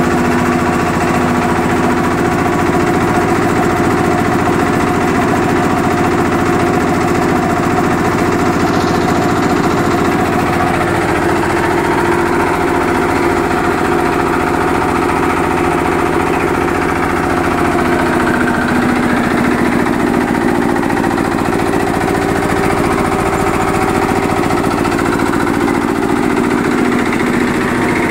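Yanmar TF155 single-cylinder diesel engine running steadily, belt-driving a Puma 10 HP piston air compressor pump during a test run to pressurise its tank.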